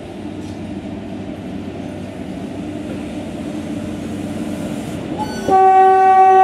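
An Indian Railways WAG-7 electric locomotive hauling a goods train rumbles past at speed. About five and a half seconds in, its horn starts: one steady, held blast that becomes the loudest sound.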